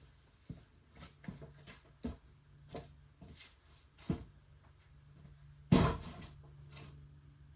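Scattered knocks and clatter of objects being handled and moved, with one loud bang just under six seconds in, over a low steady hum.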